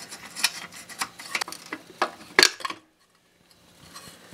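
Scattered light metal clicks and clinks as the loosened muffler is worked off a 5 hp Briggs & Stratton engine by hand, the sharpest clink about two and a half seconds in.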